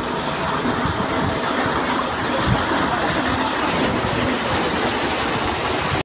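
Tractor-driven two-row potato combine harvester running in the field: the tractor's engine under the steady clatter and rush of its digging blade, conveyors and separating belts, a dense even noise with no let-up.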